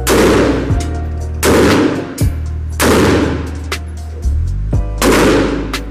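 Four gunshots, irregularly spaced a second or two apart, each with a short echoing tail, over background music with a steady bass line.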